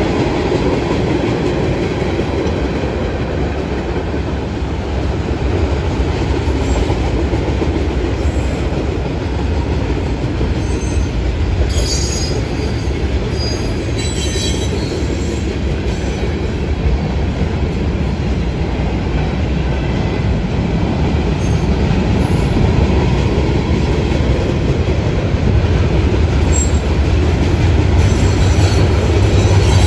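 Long mixed freight train of tank cars, boxcars, hoppers and gondolas rolling past: a steady rumble of steel wheels on rails, with a few short high wheel squeals around the middle and once near the end.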